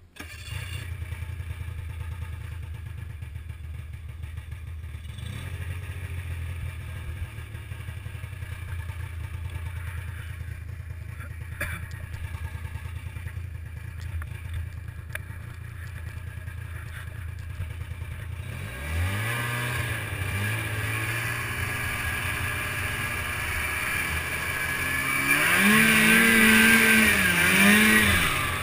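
Snowmobile engine idling with a steady low hum, then about two-thirds of the way in it revs up as the sled pulls away. It runs under throttle with the pitch rising and falling, loudest near the end.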